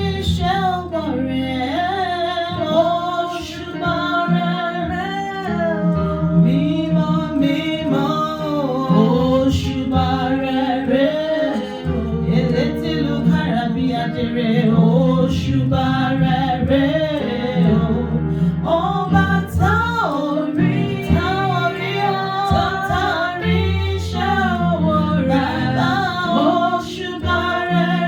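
Gospel worship song: a woman singing a slow melody over a steady instrumental backing.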